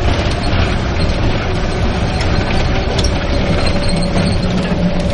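Bus engine running, heard from inside the cabin as a steady low rumble and noise, with a few sharp clicks or rattles.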